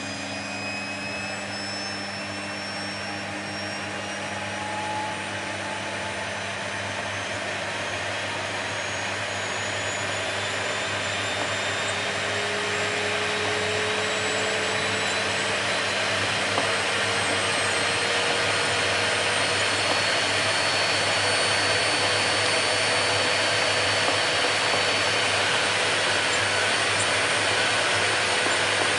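Vacuum cleaner motor running continuously with a steady rushing noise. Its whine slowly rises in pitch and the sound grows gradually louder.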